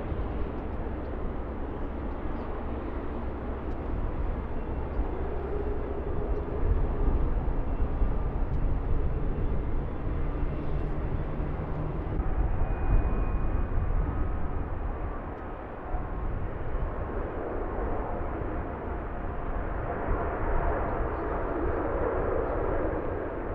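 Boeing 787-9 Dreamliner's jet engines running as it comes in to land, strengthening near the end. Strong wind rumbles on the microphone throughout.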